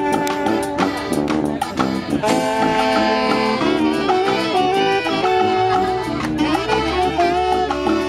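Live brass street band playing: saxophones and other horns carry the tune over drums keeping a steady beat.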